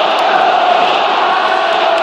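Large stadium crowd of football supporters chanting in unison, thousands of voices holding one long sung note.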